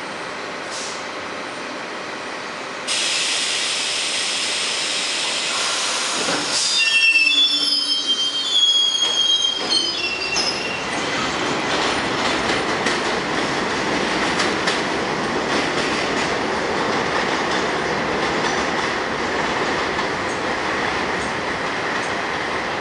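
New York City Subway R62 train pulling out along elevated track. Its wheels squeal sharply several times between about 6 and 10 seconds in, then it runs on with a steady rumble and clatter of wheels over the rails.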